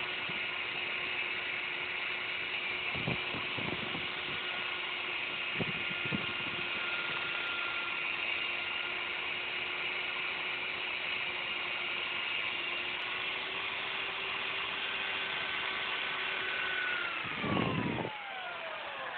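Electric hand drill running steadily, spinning a wire cable inside a motorcycle breather pipe to scour out the built-up deposits, with a few knocks along the way. Near the end the drill is let off and its whine falls away as it spins down.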